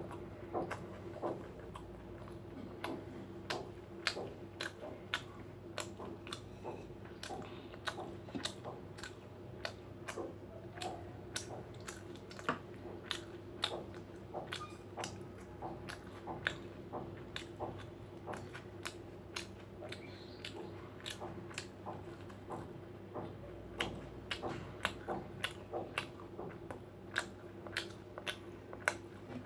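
Close-up chewing and biting of fried food and rice, many small irregular crunchy clicks one after another, over a steady low hum.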